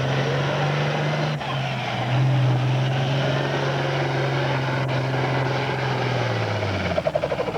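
Pro farm class pulling tractor's diesel engine running hard at a steady speed while pulling a weight-transfer sled, with a brief dip about a second and a half in. The note drops away about a second before the end, as the pull finishes.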